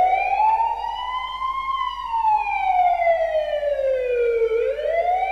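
Siren sound effect: one tone that rises, falls slowly for about four seconds, then rises again near the end.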